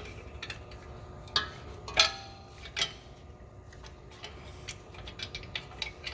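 Metal clicks and clinks of a parking brake shoe hold-down spring being pressed and turned 90 degrees with a tool. The loudest clink comes about two seconds in, with a short ring, and a run of lighter ticks follows near the end.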